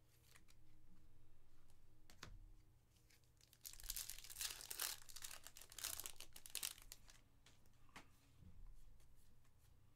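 Plastic-foil wrapper of a trading-card pack being torn open and crinkled: a few seconds of dense crackling in the middle, with a few fainter rustles and clicks before and after.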